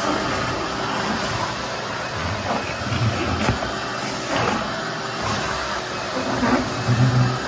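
Vacuum running steadily while cleaning up concrete dust, with a few short knocks of the nozzle or hose partway through.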